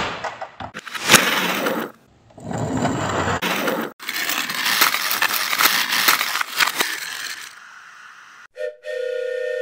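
Plastic toy train sets clattering and rattling in a string of short, abruptly cut bursts, followed near the end by a steady electronic tone held for about two seconds.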